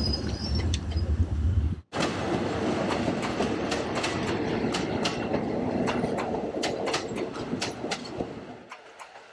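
Passenger train rolling past close by, with a low rumble and the clickety-clack of its wheels over the rail joints. The sound cuts out for an instant about two seconds in, and it fades as the carriages pass near the end.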